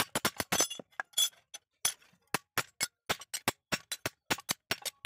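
Hammer blows on a metal strip being bent around a metal pipe clamped in a bench vise: a rapid run of sharp metallic clinks, about four to five a second, with a short pause near the middle.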